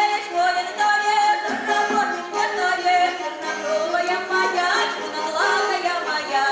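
A young girl singing a Russian folk dance song solo in the folk singing style, with gliding notes between phrases, to instrumental accompaniment.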